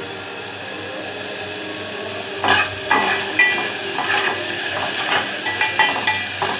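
Onion and ginger-garlic paste sizzling in hot oil in an aluminium pot over a raised flame. From about two and a half seconds in, a metal spatula scrapes and clinks against the pot at irregular intervals.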